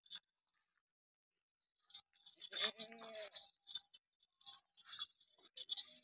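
Beetal goat bleating once, a short call of under a second about halfway through, among crunching steps on dry, stubbly ground that start about two seconds in.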